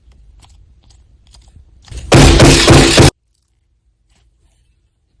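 Faint small clicks and crinkles of a squishy toy being handled, then about two seconds in a very loud, harsh burst of noise lasting about a second that cuts off abruptly into dead silence.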